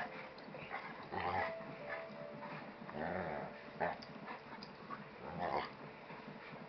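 Two dogs play-fighting, with short irregular bursts of play growls and rough mouthing noises every second or two.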